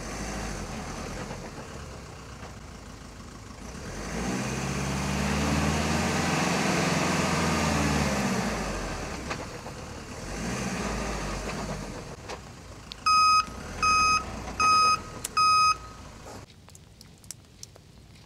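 A truck-based motorhome's engine revs hard, its pitch rising and falling, as it tries to pull out of deep mud, then revs again more briefly. Near the end come four short, loud beeps, evenly spaced.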